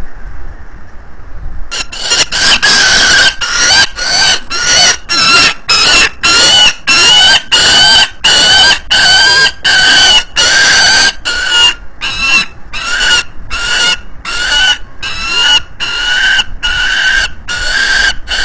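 Juvenile peregrine falcon calling loudly over and over, harsh screaming begging calls about two a second, starting about two seconds in.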